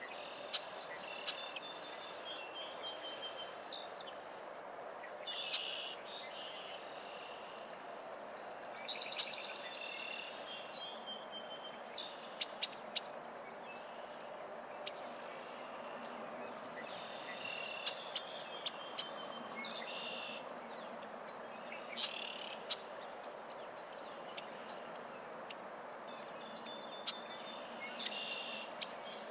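Small birds calling off and on: short high chirps and quick trills every few seconds, with a fast run of repeated notes at the start, over steady background noise.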